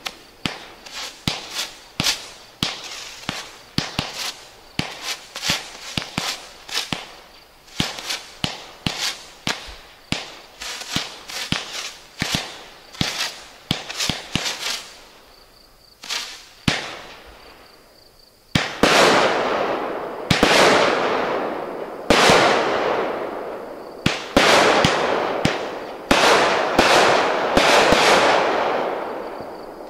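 Pyro King F-16 200-gram firework cake firing its 36 shots: a fast run of sharp shots and bursting breaks, about two a second, for the first half. After a short lull comes the finale of about six louder bursts of white glitter, each about a second and a half apart and trailing off before the next.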